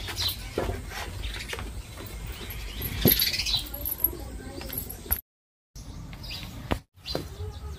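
Birds chirping over a low rumble, with scattered knocks and clatter; the sound drops out completely twice near the end.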